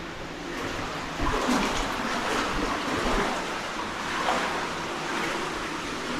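Steady rush of water from a cave stream and a small waterfall spilling over rimstone pools, with a few irregular splashes through it.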